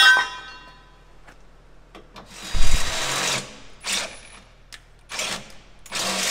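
A ringing metal clink, then a cordless drill run in short bursts before it settles into steady drilling near the end, boring out pilot holes in a steel truck chassis rail to 14 mm.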